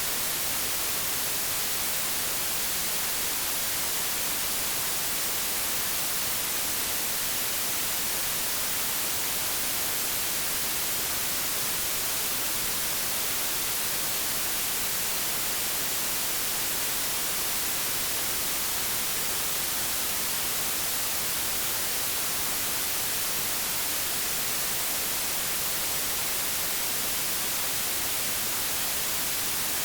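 Steady, unchanging white noise, an even hiss across the whole range from low to high.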